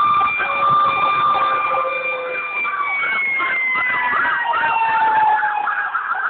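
Emergency-vehicle sirens: a rapid rising-and-falling yelp repeating about twice a second, over a long steady siren tone that slides slowly lower from about halfway through.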